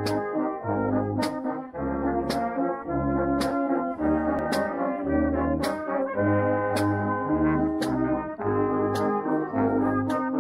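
Brass band of cornets, tenor horns, euphoniums and basses playing a slow piece in chords, the bass notes changing about once a second. A snare drum is struck about once a second, on the beat.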